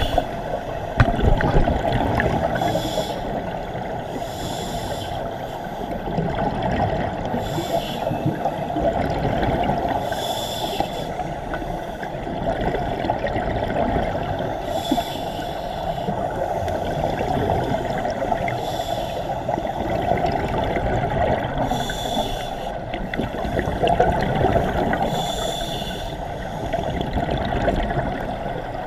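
Scuba divers breathing through regulators underwater: exhaled bubbles rush and gurgle in bursts every few seconds over a steady low rumble of water on the camera housing.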